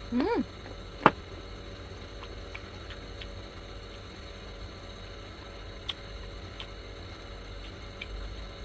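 A person eating raw carrot: a short hummed "mm", then one sharp crunch about a second in. Faint, scattered crunching ticks follow over a low steady hum.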